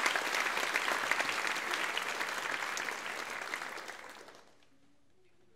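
Theatre audience applauding, fading out about four seconds in.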